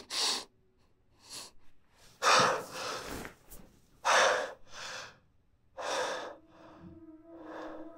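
A man breathing heavily in ragged gasps, about six breaths with short silences between them. A low steady musical drone comes in near the end.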